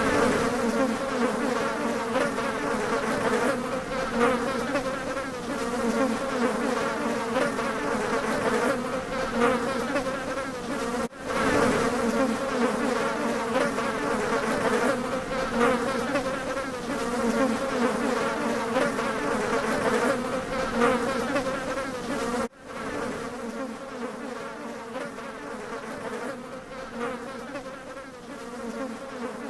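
Bees buzzing in a steady, continuous drone. It breaks off abruptly for an instant about 11 seconds in and again about 22 seconds in, running a little quieter after the second break.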